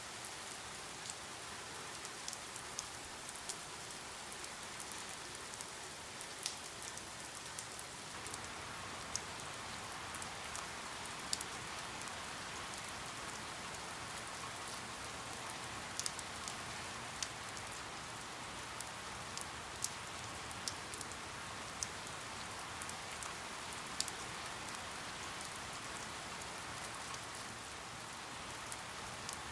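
Steady rain falling, an even hiss with frequent distinct drops striking a surface.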